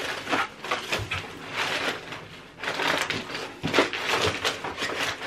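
Cardboard box flaps and crumpled brown packing paper rustling and crackling as a shoebox is handled and pulled from a shipping carton, with a dull knock about a second in.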